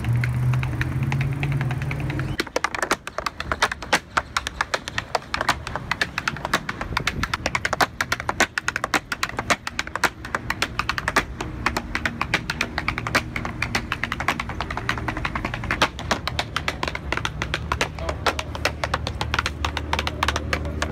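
Tap shoes striking a wooden board laid on pavement: quick, dense runs of sharp taps that keep changing rhythm, starting about two and a half seconds in. Before the taps begin there is a low steady rumble.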